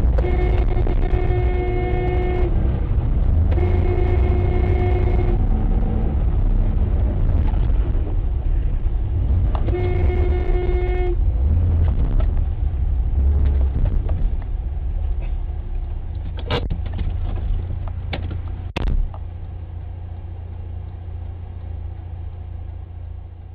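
A car horn sounding in three long blasts over a steady low rumble of engine and road noise. Two sharp knocks come later on.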